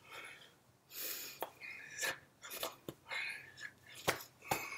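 Mouth and breath noises from someone signing: short whispery puffs and hisses mixed with lip and tongue smacks. Several sharp taps, about four, come from hands striking each other or the chest.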